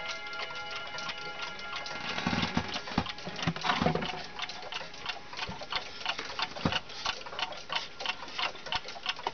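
Kieninger mechanical striking wall clock movement ticking in a quick, even beat. Near the start, the last of the ring from its strike dies away, and a few low knocks come about two to four seconds in.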